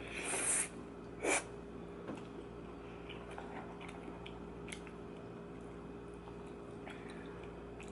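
Close-miked chewing of a soggy cheese dumpling: a short noisy burst at the start and a brief sharp sound about a second in, then faint wet mouth clicks over a steady low hum.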